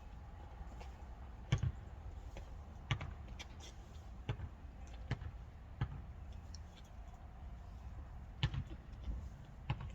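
Irregular small clicks and taps of a hand tool and metal carburetor parts on a workbench while a new part is seated in the carburetor until it stops.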